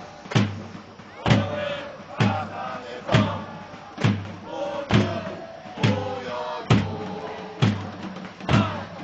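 Football supporters chanting in unison to a big drum struck about once a second, the crowd's singing carrying between the beats.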